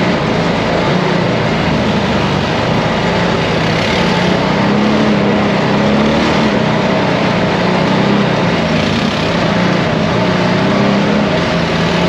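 ATV engine running steadily while under way, its pitch wavering slightly with the throttle.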